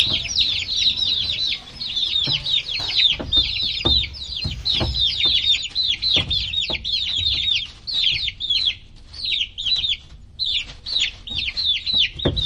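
Baby chicks peeping continuously, many short high chirps that fall in pitch, several a second, thinning briefly about ten seconds in. A few dull knocks sound underneath.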